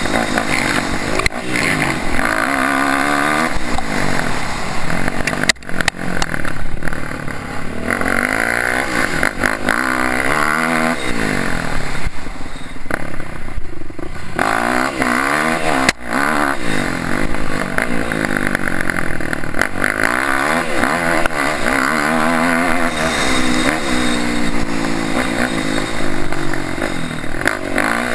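Dirt bike engine revving up and down over and over as it is ridden hard, its pitch rising and falling every second or two, with clattering, wind noise and a few sharp knocks.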